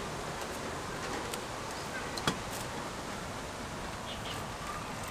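Jianbing crepe sizzling on a hot griddle, a steady hiss, with one sharp knock a little over two seconds in.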